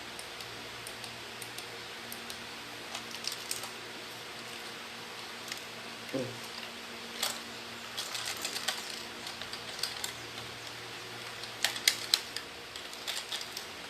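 Handling of a plastic rechargeable flashlight and its shoulder strap: scattered light clicks and taps, coming in small clusters.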